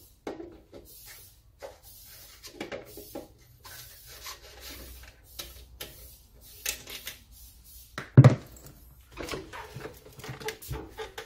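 Screwdriver and small metal parts being worked on the motor housing of a cut-off saw: scattered clicks, light knocks and scraping, with one loud knock about eight seconds in.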